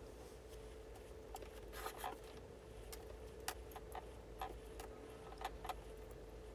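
Faint, scattered light clicks and taps of fingers and fingernails working tape against a glazed ceramic platter, over a faint steady hum.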